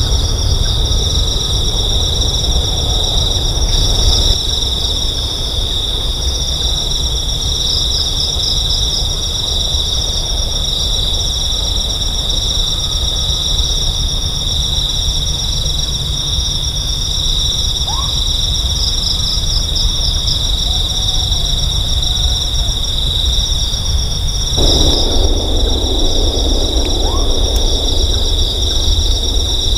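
A night insect chorus, crickets chirring in two steady high-pitched drones, one of them pulsing, over a constant low rumble.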